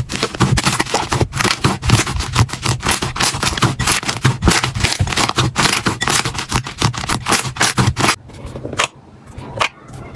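Slime being squeezed and pressed by hand, making a dense run of crackling pops and squishes. They thin out and turn quieter about eight seconds in.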